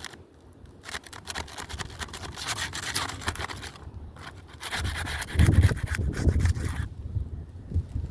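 Scraping tool rasping under asphalt roof shingles in quick repeated strokes, working around a wind-damaged shingle to free it for removal. A heavier low rumble joins about five seconds in.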